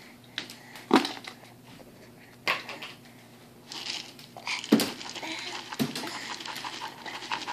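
A few sharp knocks on a plastic high chair tray, then from about halfway a quick, steady rattle of many small clicks, like small hard pieces shaken or scattered.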